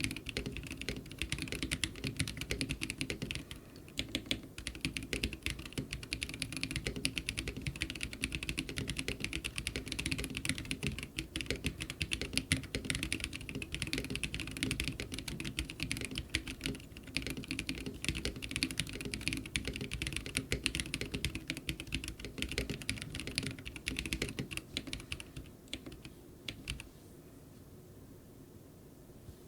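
Fast, continuous typing on a Womier K87 mechanical keyboard with an acrylic plate and lubed Glorious Holy Panda tactile switches under stock keycaps. The keystrokes stop a few seconds before the end, after a last few strokes.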